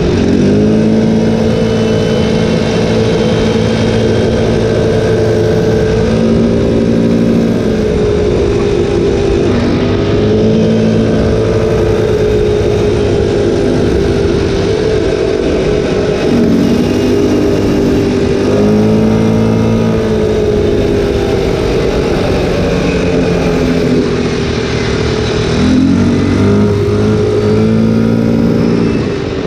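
ATV engine running under way, its pitch falling and rising again several times as the throttle is eased off and opened back up.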